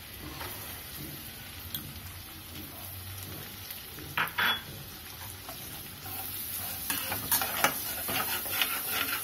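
Chopped onions sizzling in melted butter in an aluminium kadhai, stirred with a metal slotted spatula that scrapes and clicks against the pan. The sizzle grows louder about six seconds in.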